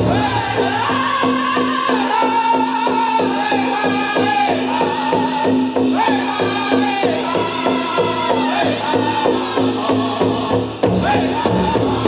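Powwow drum group playing a chicken dance song: men singing high in unison over a big drum struck in a fast, steady beat. The drumming breaks off near the end.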